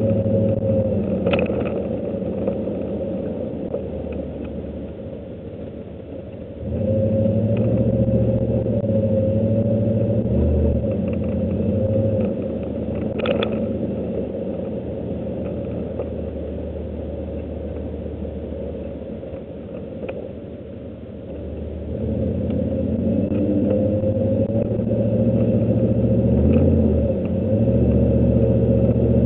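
Pickup truck engine heard from inside the cab while the truck is driven. The engine eases off and fades over the first several seconds, then picks up sharply about seven seconds in, drops back around twenty seconds and builds up again after that. A couple of short clicks are heard along the way.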